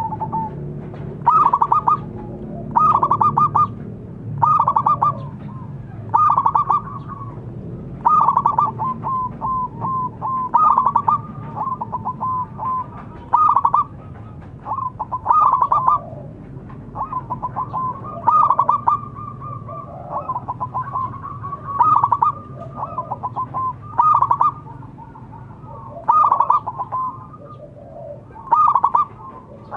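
Zebra dove (perkutut) cooing: rapid stuttering runs of short staccato coos, one burst about every two seconds.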